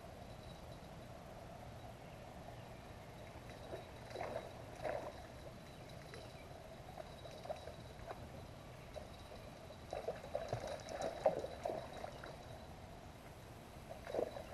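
Water splashing in irregular bursts as a hooked fish thrashes at the surface and a landing net is worked through the water to land it. The splashes come in clusters about four seconds in, again from about ten to twelve seconds, and once more near the end.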